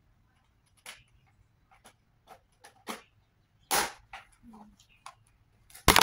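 Scattered plastic clicks and knocks from the parts of a stick vacuum cleaner being handled, with no motor running; the loudest knock comes near the end.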